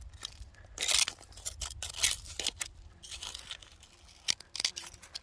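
Irregular scraping and crunching of dirt and stone, as a rock is handled and moved by hand.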